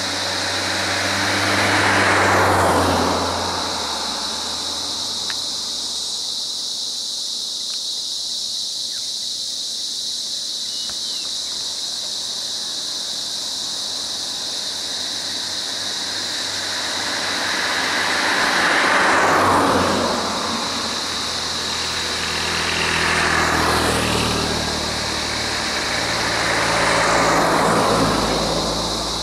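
Road vehicles passing one at a time, each rising and fading over a couple of seconds. One passes about two seconds in, then three more close together in the last third. Under them runs a steady high-pitched insect drone.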